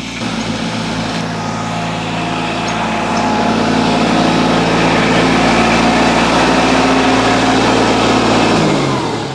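Kubota compact tractor engine running steadily while driving a mini round baler, growing louder over the first few seconds. Near the end its pitch drops as the engine is throttled down.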